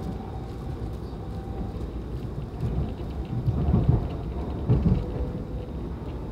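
Alstom Movia R151 metro train running on elevated track, heard inside the passenger car: a steady low rumble with faint whining tones. Two louder bumps come about four and five seconds in.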